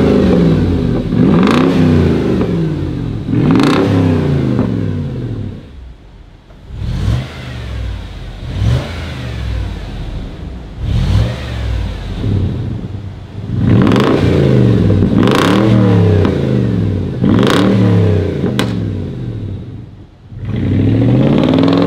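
Range Rover Sport's 4.2-litre supercharged V8 revved in repeated throttle blips, each rising and then falling in pitch, through a straight-through exhaust with vacuum-operated valves. It is loud with the valves open; through the middle, with the valves switched off, the blips are smaller and quieter, close to the stock exhaust.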